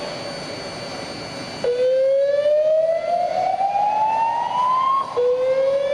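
Hotel fire alarm sounding a whoop tone: a pitch that rises steadily from low to high over about three seconds, then drops back and starts rising again. It begins about a second and a half in, after a quieter stretch. This is the hotel's alarm signal, played between the recorded announcements.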